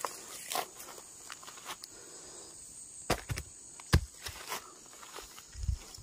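Footsteps crunching through dry leaf litter on a forest floor, irregular and uneven, with a few sharper knocks, the loudest about four seconds in.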